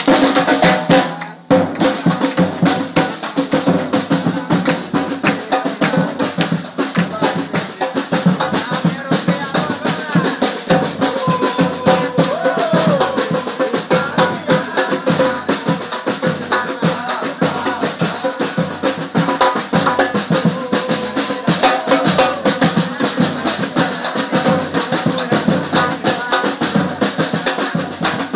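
Live samba drumming: a group of samba drums playing a fast, steady rhythm, with a brief break about a second in.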